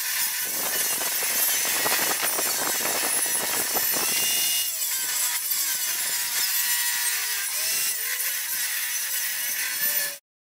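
Benchtop table saw running and cutting Douglas fir boards. The cutting is heaviest for the first four or five seconds, then the saw runs on through lighter cuts, and the sound cuts off suddenly near the end.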